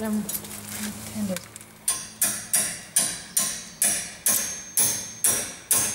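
Hammer rapping on a spanner to tighten a Land Rover swivel-housing bolt: a steady run of sharp strikes, about three a second, each with a short metallic ring, starting about two seconds in.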